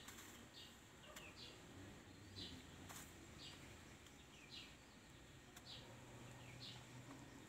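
A bird chirping faintly, a short falling note repeated about once a second.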